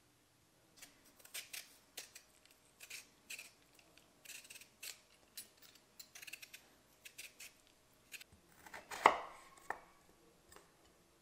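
Potato being peeled with a Y-peeler in quick, repeated scraping strokes. Then a kitchen knife cuts through the potato onto a wooden cutting board in a few sharp chops, the loudest about nine seconds in.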